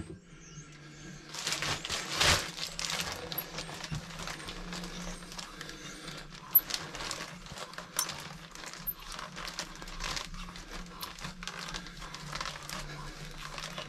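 Hand-turned tube cutter being worked round a thick aluminium fork tube, giving irregular scraping and small clicks as the cutting wheel bites in; the cut is nearly through.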